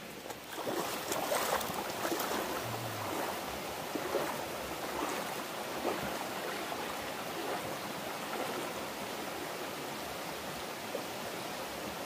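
Shallow mountain stream running over a gravel and stone bed, with water sloshing and splashing around legs wading through it, the splashing strongest in the first half.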